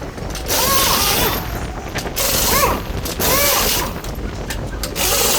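Impact wrenches rattling lug nuts off wheels in several bursts of about a second each, with short breaks between them.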